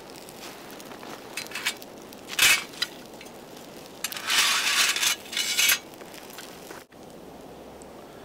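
Dry kindling, birch bark and fatwood sticks, being crunched and broken by hand. There are a few short crunches about a second in, a sharper one near the middle, and a longer stretch of crunching a little later.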